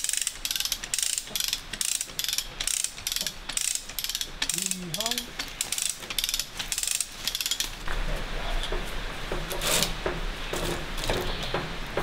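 Hand-ratcheting cable puller (come-along) being worked to tension a steel zipline cable: a run of sharp ratchet clicks, about three a second, that stops about seven seconds in.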